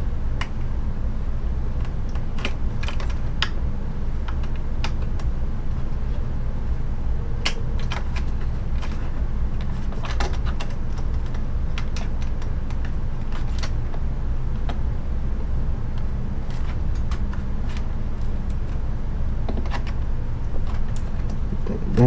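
Irregular light clicks and taps of computer parts being handled during assembly, spaced a second or more apart, over a steady low hum.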